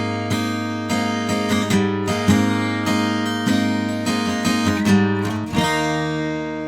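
Acoustic guitar strummed and picked in a steady run of chords; a last chord about five and a half seconds in is left to ring.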